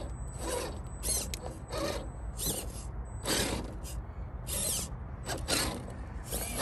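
Redcat Gen8 V2 1/10 scale RC crawler's electric motor and geared drivetrain whirring in repeated short bursts as the throttle is blipped while it climbs.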